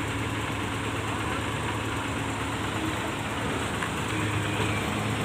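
A heavy diesel farm engine, from the combine harvester or a tractor, running steadily at an even, low pitch.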